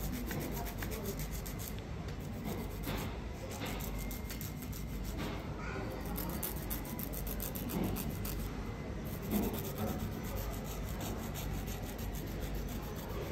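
Fingernails being filed by hand, a file rubbing back and forth in quick, even strokes.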